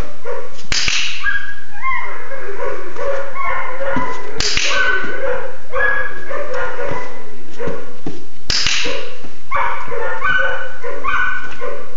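Puppy yapping in a quick string of short, high yips and barks, with three sharp clicker clicks about four seconds apart.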